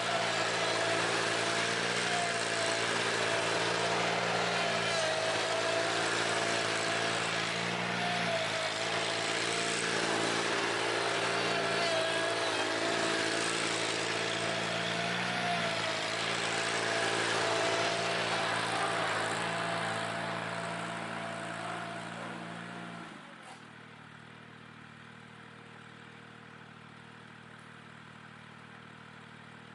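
Ventrac 4520Z tractor running at high throttle while driving its KC180 stump grinder attachment, a steady engine drone with a wide grinding hiss over it. About 23 seconds in, the engine winds down and the grinding noise stops, leaving the tractor running much more quietly at low speed.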